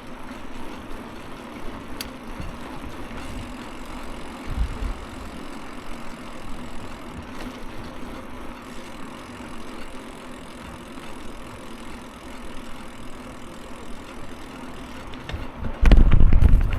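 Steady motor-vehicle engine noise from road traffic, with a loud burst of wind buffeting the microphone near the end.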